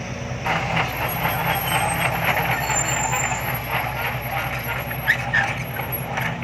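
Heavy diesel machinery running at a dirt-loading site, a dump truck and excavator working. About half a second in, a louder rattling engine note comes in and holds steady.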